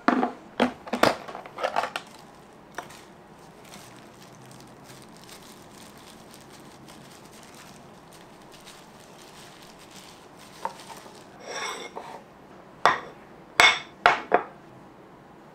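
Kitchen containers and dishes handled on a wooden cutting board: a quick cluster of sharp plastic clacks in the first two seconds, a quiet stretch, then a brief scrape and several sharp clinks near the end as a glass bowl is set down.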